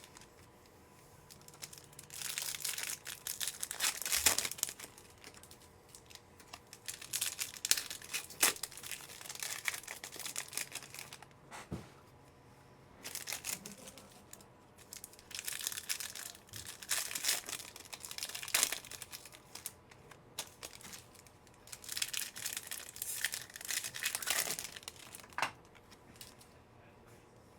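Plastic trading-card pack wrappers being torn open and crinkled by hand, in several bursts of crackling a few seconds apart with short quiet gaps between them.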